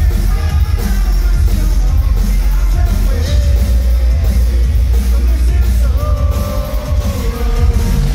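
Live electronic rock band playing at full volume, with heavy bass and drums under a male vocalist singing long held notes.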